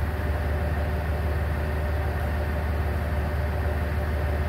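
Diesel railcar's engine idling while the train stands at the station, heard inside the passenger cabin as a steady low hum.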